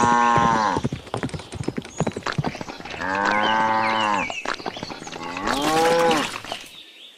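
Cattle mooing: three long moos, one at the start, one about three seconds in and one near six seconds, with short clicks and knocks between them.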